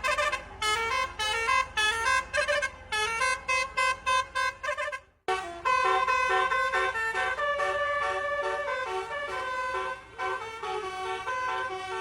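Indonesian bus 'telolet' musical multi-tone horn sounding rapid, short repeated toots for about five seconds. It cuts off abruptly, then plays a tune of longer held notes at changing pitches.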